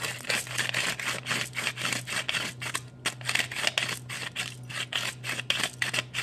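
Stainless steel pepper mill twisted by hand, grinding black peppercorns in quick, repeated crunching turns, with a short pause about halfway through.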